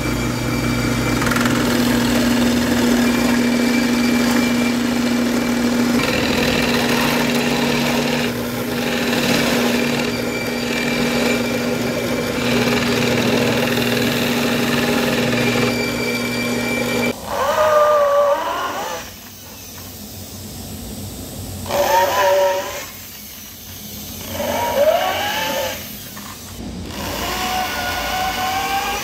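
A drill bores concealed-hinge cup holes in 18 mm birch plywood with a Forstner-type bit, its motor running with a steady hum while the bit cuts, then stopping about 17 seconds in. After that, a corded handheld electric drill runs in three or four short bursts, its whine rising and falling in pitch with each pull of the trigger, as it drills into the plywood door.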